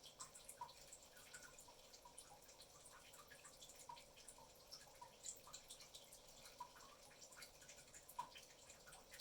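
Near silence: faint room tone with scattered, irregular small ticks.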